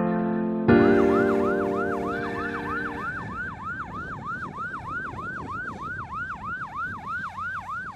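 Airport crash tender's electronic siren yelping, its tone sweeping quickly up and down about three times a second. A piano chord from the background music is struck about a second in and fades out by a few seconds in.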